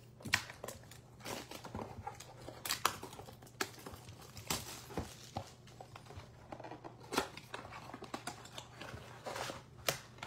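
A Bowman baseball card blaster box being opened by hand and its card packs pulled out: irregular cardboard taps, scrapes and crinkles, over a faint steady low hum.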